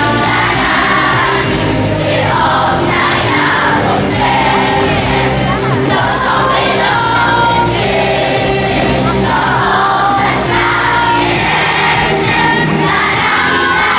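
A choir singing a Christmas carol over instrumental accompaniment, at a steady, full level.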